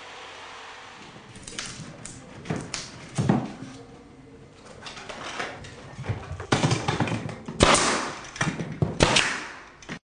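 Pneumatic nail gun driving nails into trim: a run of sharp shots from about six and a half seconds in, with scattered lighter knocks and clicks before it. The sound cuts off just before the end.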